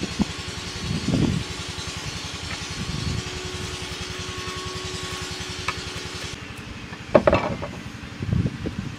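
A small engine running steadily with an even low pulse, with a few short, louder sounds over it and a hiss that stops about two-thirds of the way through.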